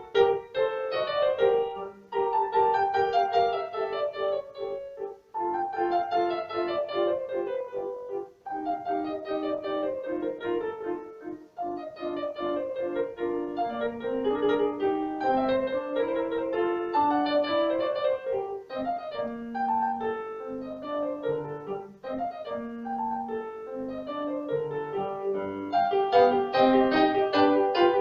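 Piano music: a melody played in quick successive notes, with runs stepping downward and brief pauses between phrases.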